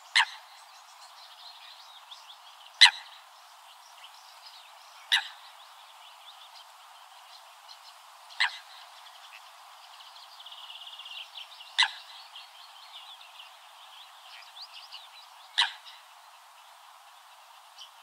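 Common moorhen giving six short, sharp calls a few seconds apart, over a background of small birds chirping, with a brief trill about halfway through.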